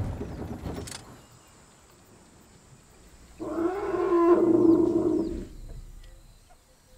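A savannah elephant gives one loud, roar-like call that lasts about two seconds, beginning about three and a half seconds in.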